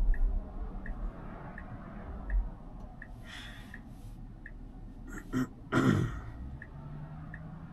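Tesla Model Y turn-signal indicator ticking steadily, about one tick every 0.7 s, while the car waits to turn left. A person's breath is heard about three seconds in, and louder breathy, throat-clearing sounds come around five to six seconds in.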